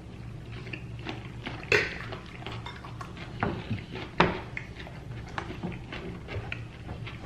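Utensils clinking and scraping against a plate while more lettuce is served onto it: scattered light clicks, with two sharper clinks, one just under two seconds in and one about four seconds in.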